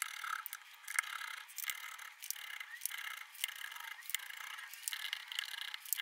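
Hand-held manual can opener cranking around the rim of a metal can: a quick, irregular run of metallic clicks and scraping as the cutting wheel works through the lid. It sounds thin, with no low end.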